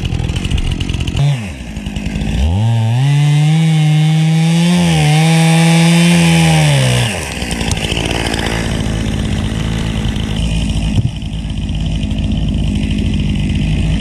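Stihl two-stroke chainsaw cutting a dead tree trunk. About two and a half seconds in it revs up to full throttle and holds there for about four and a half seconds, then eases off and keeps running at lower speed.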